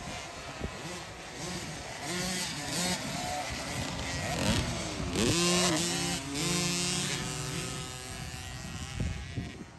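Dirt bike engines revving, their pitch climbing and dropping again and again, with several engines overlapping and loudest about halfway through.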